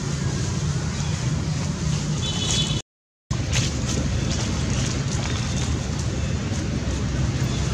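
Steady outdoor background noise: wind on the microphone over a low, even hum, with a few faint clicks. The sound cuts out to silence for about half a second a little before three seconds in, then resumes unchanged.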